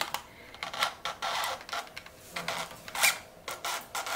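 Paper safety cover of a Fujifilm FP-100C pack-film cartridge being pulled out of a Polaroid Land Camera Automatic 100: several short scraping, sliding rasps of paper, with a couple of sharp clicks.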